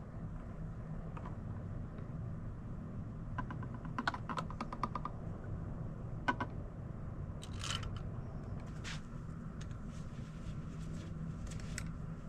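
Scattered light clicks and taps of hand tools and small engine parts being handled at a workbench, with a quick run of clicks about four seconds in, over a steady low hum.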